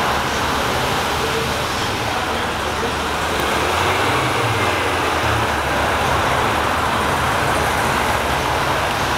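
Steady vehicle rumble under a constant even hiss, like road traffic, with no distinct events.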